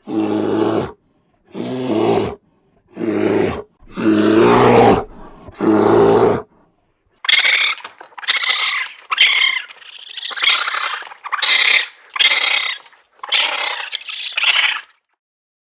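Animal calls: about five low, pitched calls of roughly a second each, then, after a short gap, about nine shorter and higher-pitched calls.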